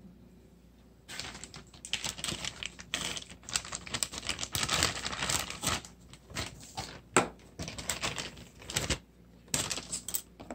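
Slime being kneaded and mixed by hand, giving rapid runs of wet clicks and crackles that start about a second in and break off in short pauses.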